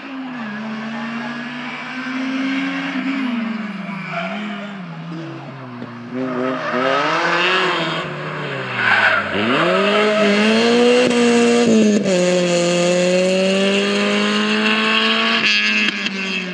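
Rally car engines on a special stage. An engine revs and changes gear further off, then the Opel Kadett E rally car's engine drops sharply in pitch as it brakes and slows about nine seconds in. It then pulls hard up through the gears as it passes, loudest in the second half.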